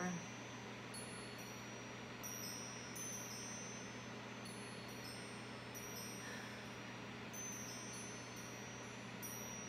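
Wind chime tinkling: irregular high, thin ringing notes, each fading slowly, over a steady low hum.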